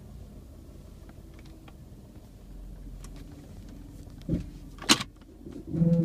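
Steady low drone of a running 1999 Jeep Grand Cherokee V8 heard inside the cabin, with a few faint ticks. A thud comes about four seconds in, a sharp click (the loudest sound) follows a moment later, and a louder bump comes near the end.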